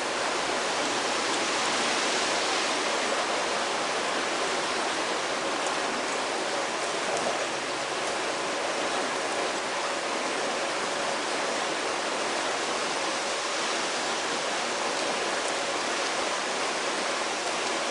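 Steady, even rushing of water with no breaks.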